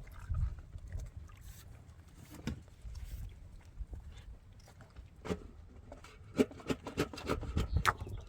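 Irregular knocks and clatters of hard objects, sparse at first and coming thick and fast from about five seconds in, over a low steady rumble.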